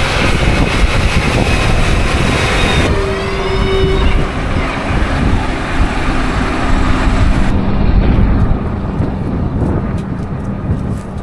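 Case IH Magnum 380CVT tractor running under load as it pulls an anhydrous ammonia applicator bar through the field, with a brief rising whine about three seconds in. The sound changes abruptly twice as the view shifts.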